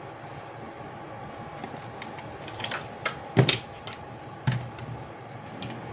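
Scattered light clicks and knocks from handling on a repair bench, with the loudest knock about three and a half seconds in and another a second later, over a faint steady hum.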